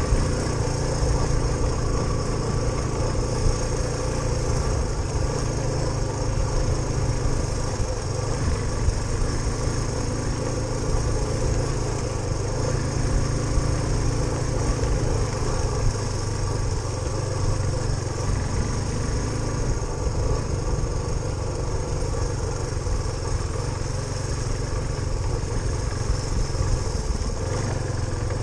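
Suzuki DR350SE's single-cylinder four-stroke engine running steadily at a fairly even speed.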